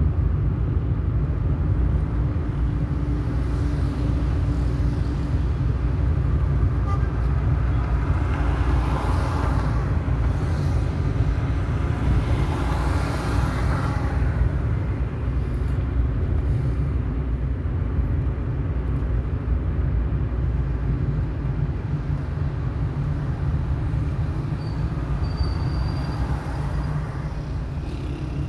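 Car driving through city traffic, heard from inside the car: a steady low road and engine rumble, with two swells of noise from passing vehicles about a third and halfway through.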